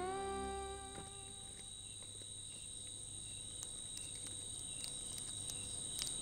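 Crickets chirping in a steady high trill, the night ambience under the scene, as the last notes of a music cue fade out in the first second. A few faint clicks come in the second half.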